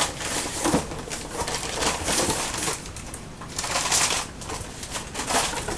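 Packaging rustled and crinkled by hands searching through a box, coming in several uneven bursts.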